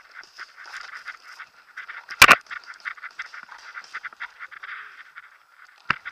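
Paintball marker shots: two sharp pops in quick succession about two seconds in and one more just before the end, over continuous rustling and brushing from moving through low forest undergrowth.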